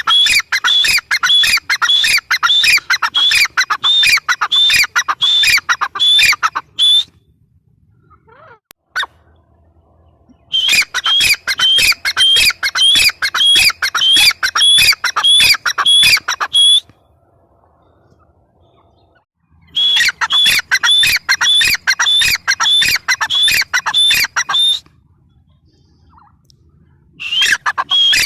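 Grey francolin (teetar) calling in loud runs of rapid, repeated shrill notes. The calls come in bouts of five to seven seconds, separated by pauses of about three seconds.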